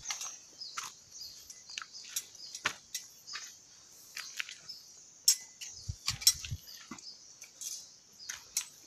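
Footsteps on rocks strewn with dry leaves: a string of short crackles and crunches, with a few heavier steps a little past the middle.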